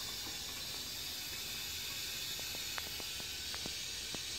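Steady hiss of water running into a cast-iron Shanks cistern through its float valve as it refills, with a few faint ticks in the second half.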